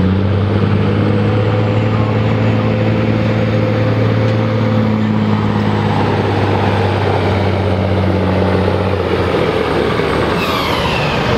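Peterbilt semi truck's diesel engine running hard under full load as it pulls the weight-transfer sled, a steady deep drone. About nine seconds in the drone eases into a rougher noise, and a high falling whine follows near the end.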